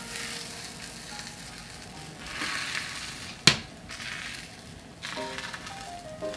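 Beaten tamagoyaki egg sizzling as it is poured into a hot oiled iron frying pan, the sizzle swelling again as the pan is tilted to spread it. A single sharp knock about three and a half seconds in, and light background music from about five seconds in.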